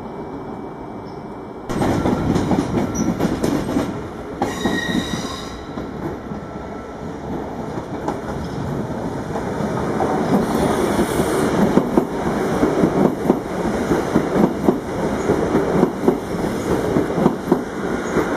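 NS Sprinter Lighttrain electric multiple unit running past on the platform track, starting suddenly about two seconds in. Its wheels clack regularly over the rail joints, louder from about halfway, with a brief high squeal around five seconds in.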